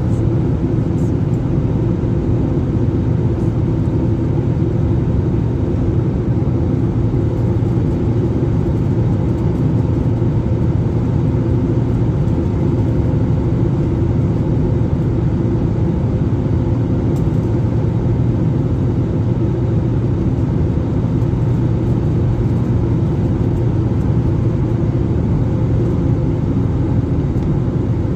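Steady, even drone inside a passenger aircraft cabin in flight: engine and airflow noise, low and unbroken, with a few steady hum tones in it.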